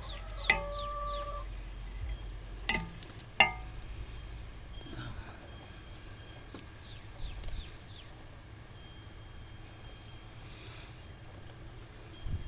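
Small birds chirping on and off, with three sharp clinks in the first few seconds. The first clink rings on briefly like a chime.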